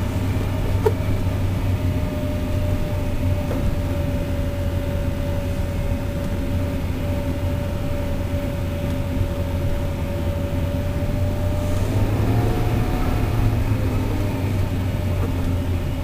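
Car engine and road noise heard from inside the closed cabin while driving, a steady low rumble. A steady tone in the noise steps up in pitch about twelve seconds in.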